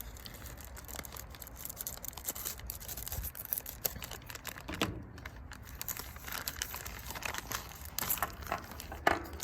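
Packaging crinkling and rustling as an unboxing pack is handled and opened, with a few louder crackles, the loudest near the end.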